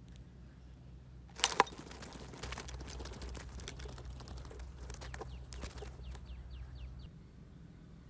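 A stick-and-bottle bird trap springs with a sharp snap about a second and a half in, followed by a caught shrike fluttering and struggling against the sticks in a few seconds of clicks and rustles. Near the end of the struggle the bird gives a quick run of short, high, falling calls.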